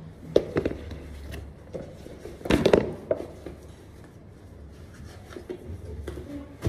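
Objects being handled in a small room: scattered clicks and knocks, with the loudest clatter about two and a half seconds in, over a low steady hum.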